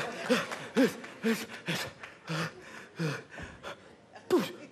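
Short breathy vocal sounds, gasps and chuckling, coming one after another about every half second, with a brief lull around four seconds in.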